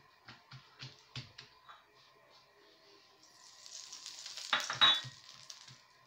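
A little oil dripped into a hot non-stick frying pan, sizzling and crackling: the hiss builds a few seconds in, peaks with a few sharp crackles, then dies away. Soft short ticks come before it.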